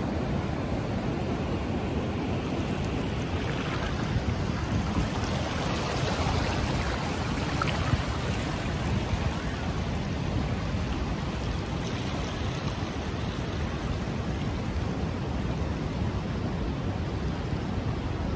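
Ocean surf and shallow incoming tide water washing across flat sand: a steady rushing noise that swells a little about a third of the way in.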